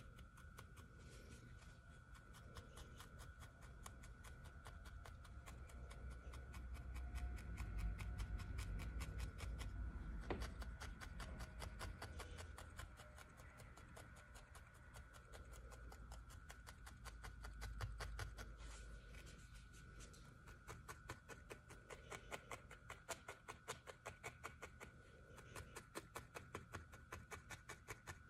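Felting needle repeatedly stabbing wool fibre into a foam felting pad: a steady rhythm of faint soft pokes, a few per second, with a faint steady high hum underneath and some low rumbling in the middle.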